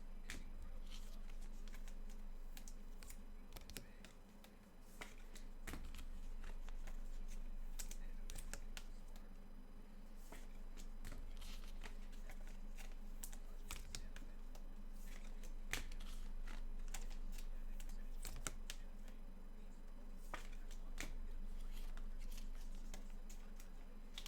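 Trading cards and their packaging being handled, with irregular crinkling, rustling and sharp clicks over a faint steady hum.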